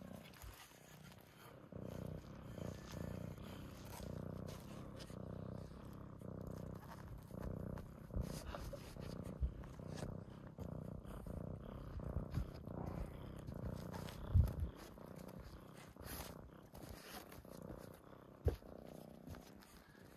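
Domestic cat purring close to the microphone, a steady pulsing low rumble. Two brief low thumps break in during the second half, the first the loudest sound.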